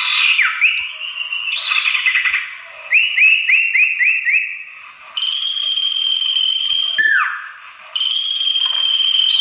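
Common iora (sirtu) calls from a bird-lure recording played to draw in wild ioras. Harsh buzzy chattering comes first, then a quick run of five upswept whistled notes about three seconds in, then long level whistles, the first ending in a sharp downward slur.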